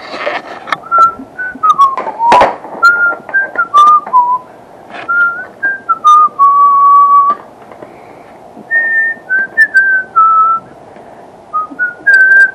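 A person whistling a tune in clear single notes that step up and down, with a pause about two-thirds of the way through. Sharp clicks and clacks of hard plastic display cases being stacked come in between the notes.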